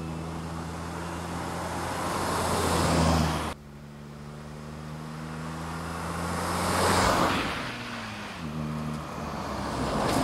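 An LDV van's engine running with tyre noise as it drives through bends and passes by, swelling as it nears. The sound cuts off abruptly about three and a half seconds in, then builds to another pass around seven seconds in and again near the end.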